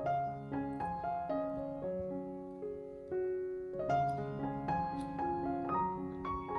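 Background piano music: a melody of separate notes over held low notes.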